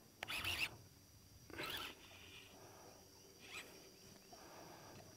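Baitcasting fishing reel being worked under load, giving four short rasping, zipper-like bursts spread over a few seconds.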